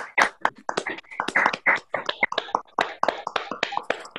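Several people clapping over a video call, dense, uneven and overlapping hand claps.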